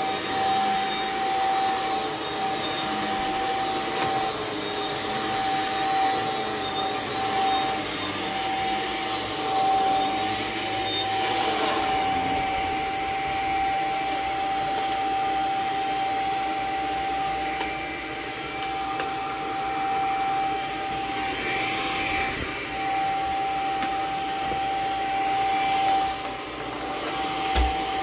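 Upright vacuum cleaner with a powered brush head running on carpet: a steady motor drone with a constant high whine. A short low bump comes near the end.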